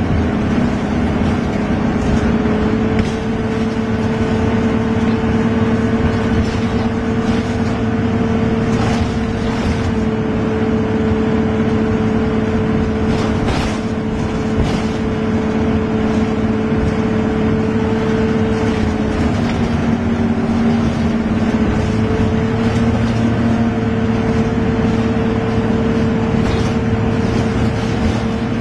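A motor vehicle engine running steadily with an even hum. Its pitch dips briefly about two-thirds of the way through, then comes back up.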